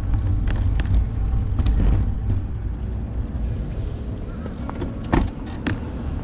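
Wind rumble on the camera microphone and road noise from a moving bicycle, easing after about two seconds as the bike slows, with a few sharp clicks and knocks from the bike, two of them close together near the end.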